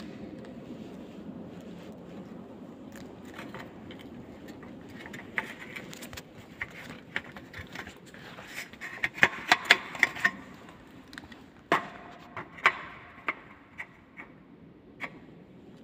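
A run of sharp clicks and light knocks, densest about nine to ten seconds in, over a low steady hum that fades after the first few seconds.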